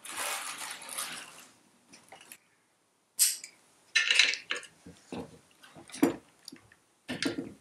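Ratchet socket wrench and metal tools clinking and clattering against the aluminium cylinder head of a Citroën 2CV flat-twin engine as the head is undone. A second or so of scraping handling at the start, then about five short metallic knocks spread out.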